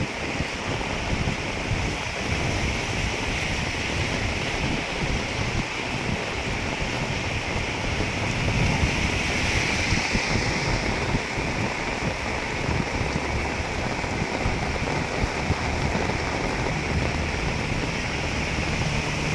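Heavy rain pouring steadily onto a paved road, with runoff water flowing along the roadside into a culvert drain, and wind rumbling on the microphone.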